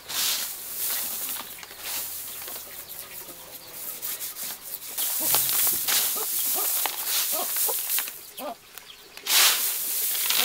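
Handfuls of dry unhusked rice scooped up and let fall onto a plastic tarp, a dry rustling hiss of pouring grain. It comes in several waves and is loudest near the end.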